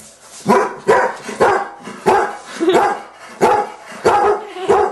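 A dog barking repeatedly, a bark every half second or so, starting about half a second in.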